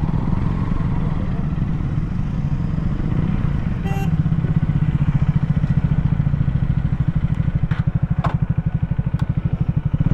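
KTM Duke 250's single-cylinder engine running at low revs while the bike rolls slowly, with an even pulsing beat. A short click sounds about four seconds in.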